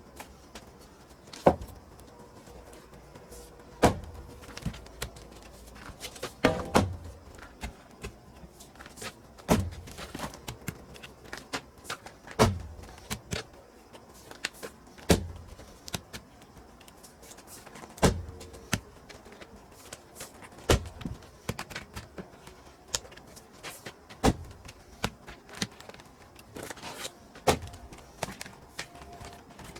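Pine firewood being split by hand: a sharp splitting strike every two to three seconds, about ten in all, with smaller knocks between them.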